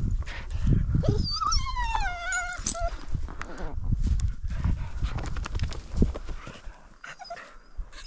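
Bird dog whining eagerly before being let loose to hunt. One long whine about a second and a half in falls steadily in pitch, among low thumps and rustling.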